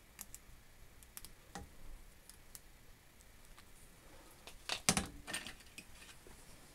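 Light metal clicks and taps from parts of a small cast-iron guillotine being handled and fitted during reassembly, with a louder clatter of knocks about five seconds in as the blade arm is moved.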